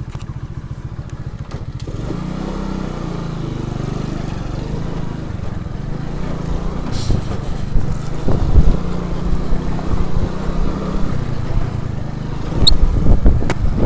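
Alpha moped's small single-cylinder four-stroke engine running while riding, its note picking up about two seconds in and then holding steady, with low gusty rumbles growing louder in the second half.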